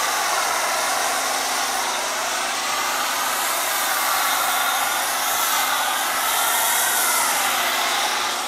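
Pressure washer running steadily, its spray from the wand hissing, with a slowly wavering pitch.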